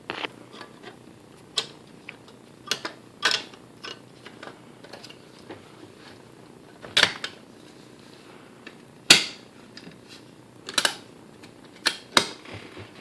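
Irregular clicks and knocks as the split body panels of a Voss ST-24 portable typewriter are worked back onto the machine and snapped into place, with the loudest knocks in the second half.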